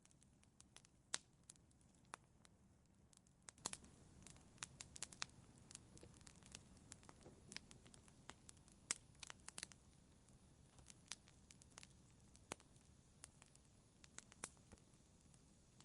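Wood fire in a fireplace crackling: scattered sharp pops and snaps over a soft low hiss, getting busier about three and a half seconds in.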